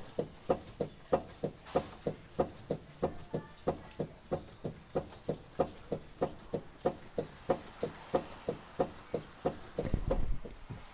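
Mazda Biante minivan's worn stabilizer bar bushings knocking in an even rhythm, about three knocks a second: the clunking rattle of worn sway-bar bushes, front and rear. Near the end a louder low rumble comes in under the knocks.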